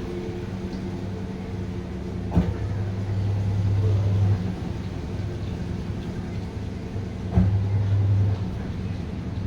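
Sharp washing machine running its wash with a steady motor hum. A sharp click comes about two and a half seconds in and again about seven and a half seconds in, each followed by a louder stretch of motor hum lasting one to two seconds.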